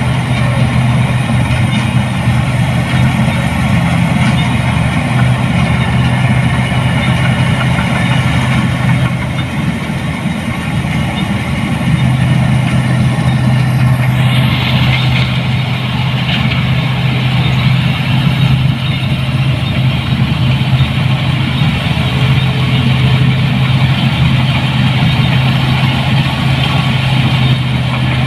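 New Holland 8060 combine harvester's engine running steadily, a constant low drone with machinery noise over it, easing briefly and then shifting about halfway through.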